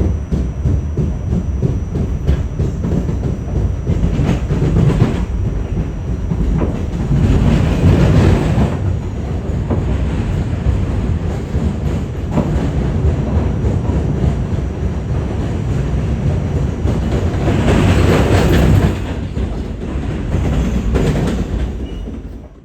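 Train running on rails: a steady heavy rumble with scattered wheel clicks, swelling louder a few times, then fading out quickly right at the end.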